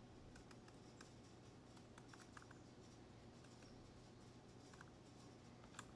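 Faint computer keyboard typing: a dozen or so scattered key clicks over a low steady hum.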